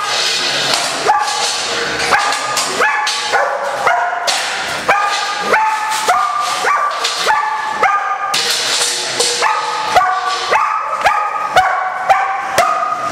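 Dog barking repeatedly and steadily, about two barks a second: aroused barking at the handler during bite-work training.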